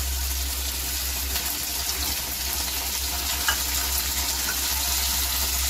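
Vegetables and freshly added sauces sizzling steadily in a hot kadhai, with a faint tap of the spatula about three and a half seconds in.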